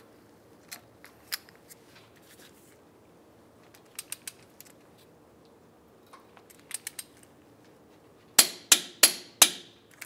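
Torque wrench tightening the wheel bearing hub's mounting bolts to 148 ft-lb. It makes a few short runs of light ratchet clicks, then four loud, sharp clicks near the end as the wrench reaches its set torque.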